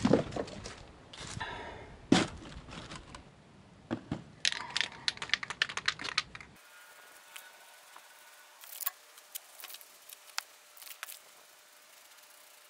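Handling noise: knocks, clicks and a run of crinkling as a spin-on oil filter and its packaging are handled. After a sudden change in background, fainter scattered clicks follow.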